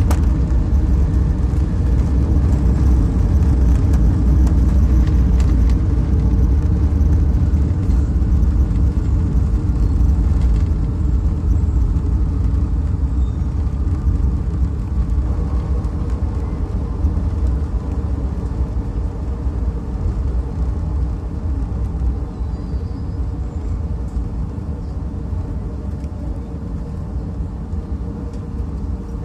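Inside the cabin of a Boeing 757-200 on its landing rollout: a loud, deep rumble of the engines and the wheels on the runway that slowly eases off as the jet slows down.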